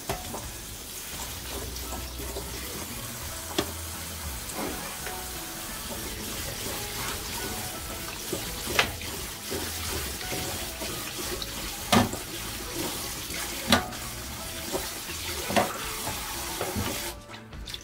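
Kitchen tap water running into a stainless steel bowl of cubed radish as hands rinse the cubes, with a few sharp knocks of radish against the bowl. The running water stops near the end.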